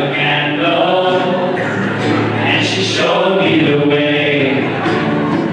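Several voices singing together in a slow, choir-like melody with long held notes.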